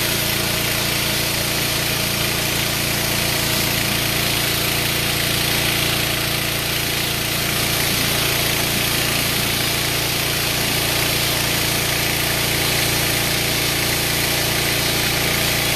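Pressure washer's engine running steadily, with the constant hiss of the high-pressure water spray.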